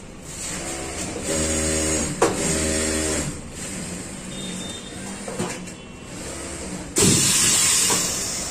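Machine hum with a click partway through, then a sudden loud hiss of air about seven seconds in as the pneumatic heat press comes down on the fabric, fading away slowly.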